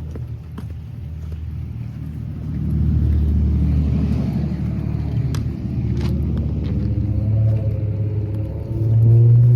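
A motor vehicle's engine running nearby, a steady low sound that grows louder about three seconds in and again near the end, with a few sharp ticks over it.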